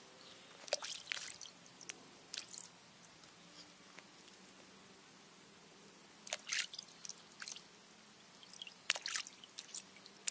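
Water dripping and splashing into a stone trough as wild mushrooms are dipped and rinsed by hand, in a few separate spells of short splashes and drips.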